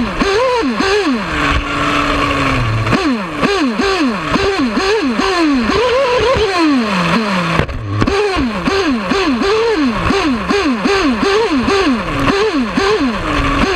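Nitro RC buggy engine, heard close from a camera mounted right behind it, revving hard and backing off over and over, about twice a second, as the throttle is worked. It holds a steadier pitch briefly early on, and there is a short drop in the sound just before eight seconds in.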